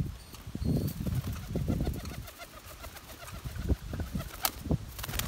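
Domestic pigeons cooing in short, low, repeated calls, with wing flaps as birds take off from the loft.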